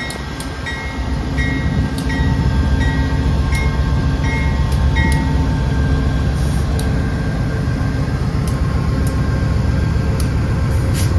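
GE P40DC diesel locomotive's engine running under load as the train moves off, growing louder about a second in. A high beep repeats about every 0.7 s through the first five seconds, and a few sharp clicks sound over the engine.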